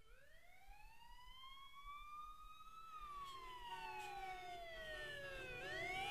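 Wailing siren fading in, its pitch rising slowly for about three seconds, falling for about three, then starting to rise again near the end. A low rumble and a steady hum build up beneath it from about halfway in.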